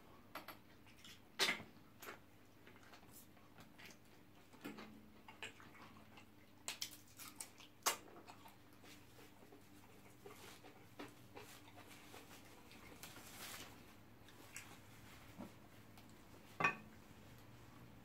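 Eating sounds: scattered wet mouth smacks and short clicks as meat is eaten off the bone and pounded yam with soup is eaten by hand, loudest about a second and a half in and again near the end.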